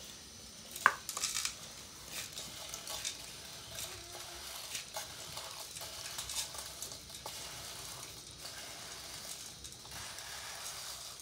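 Dry spaghetti being pushed by hand from a metal bowl into a steel pot of hot water, the sticks crackling and clicking against each other and the metal, over a steady hiss. A single sharp knock about a second in is the loudest sound.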